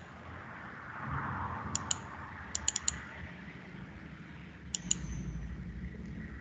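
Computer mouse button clicks in quick pairs: a double-click about two seconds in, two more double-clicks just after, and another about five seconds in. A steady low background noise runs underneath.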